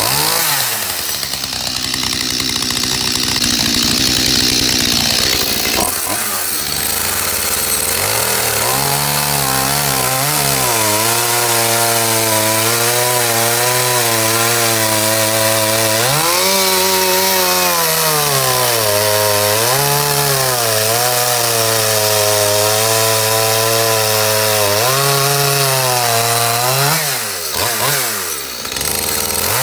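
Stihl MS 211 two-stroke chainsaw running at high revs while cutting through a log on a test cut after its carburettor was cleaned. The engine pitch sags repeatedly under the load of the cut and recovers, and dips sharply near the end before picking up again.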